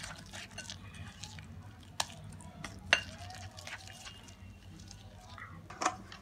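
Silicone whisk stirring a thick pancake batter in a glass bowl: soft wet squelching with small clicks, and a few sharp taps of the whisk against the glass, two of them about a second apart near the middle.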